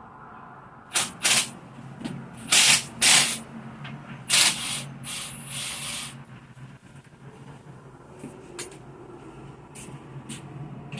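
Aerosol lubricant sprayed onto accordion shutter parts in short hissing bursts, about eight of them, the loudest in the first five seconds. One longer spray about four seconds in carries a thin whistle.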